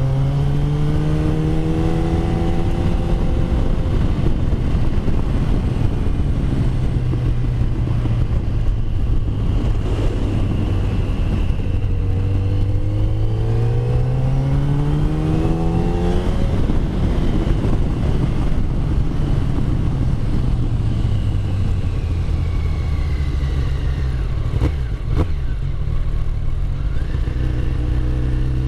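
Yamaha FZ1's inline-four engine running on the move, its pitch rising and falling several times as the rider opens and closes the throttle. Two brief knocks about three-quarters of the way through.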